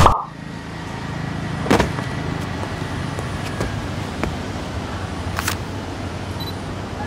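Steady low rumble of distant road traffic, with a few light clicks scattered through it, the loudest nearly two seconds in.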